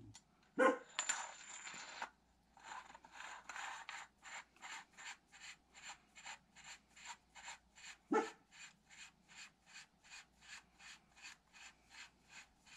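Aluminum thread-protector sleeve being screwed by hand onto the threaded muzzle of an AR-15 barrel over a crush washer: a regular series of short metal scraping strokes, about three a second. A louder short sound comes about eight seconds in.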